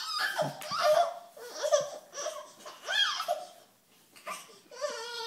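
Young child laughing in short, high-pitched bursts, with a brief quiet gap a little past halfway.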